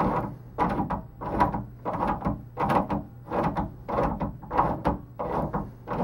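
Fluted glass doorknob being turned by hand to unscrew it from the threaded spindle of an old door latch: a short scraping sound with each turn, about twice a second.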